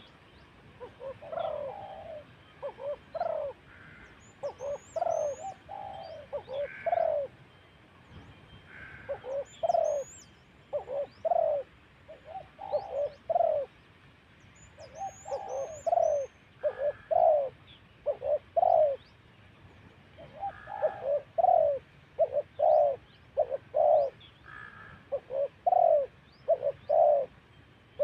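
Spotted dove cooing over and over, each phrase a short group of two to four low notes with brief pauses between phrases. Faint high chirps from small birds come in a few times.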